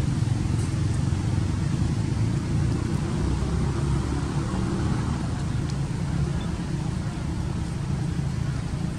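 Steady low rumble throughout, with no distinct events.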